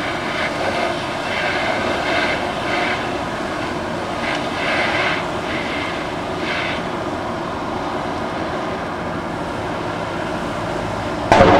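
Steady diesel drone of fire engines standing by at a car fire, with a sudden loud bang near the end.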